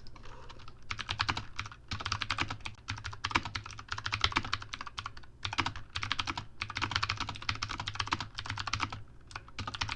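Fast typing on a computer keyboard during a typing test: rapid runs of key clicks with brief pauses, over a steady low hum.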